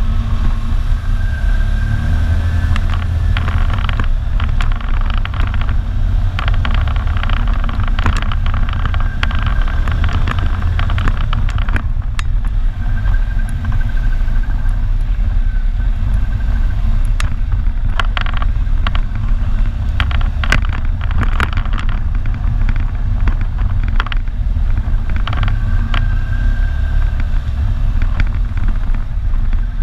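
Quad ATV engine running steadily while riding a rough trail, with a higher whine that comes and goes. Scattered knocks and clatter run through it.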